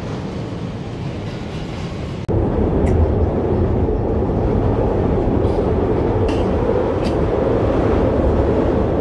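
Steady rumble of a moving vehicle, louder from about two seconds in, with a few faint clicks.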